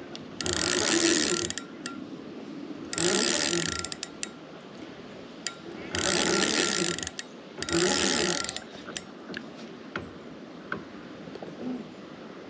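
Fishing reel running in four bursts of about a second each, a whirring, clicking mechanism, while a hooked carp is played on the line.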